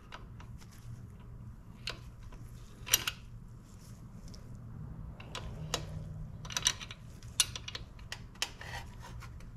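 Scattered sharp metallic clicks and taps of a hand tool working a motorcycle's chain adjuster bolt at the swingarm, a few isolated ones and then a cluster in the second half, over a steady low hum.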